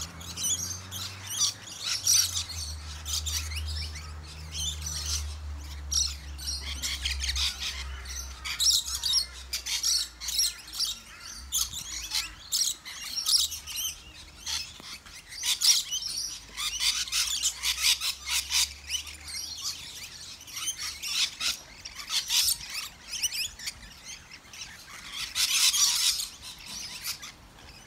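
A large flock of rainbow lorikeets feeding together, a continuous mass of high, rapid chattering calls overlapping one another. A louder cluster of calls comes near the end.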